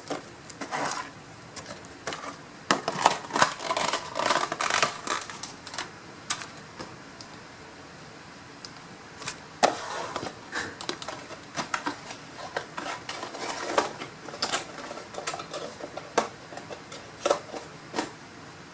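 Plastic packaging and bubble wrap being handled and packed back into a cardboard model box: irregular crinkling and sharp clicks, busiest a few seconds in and again through the second half.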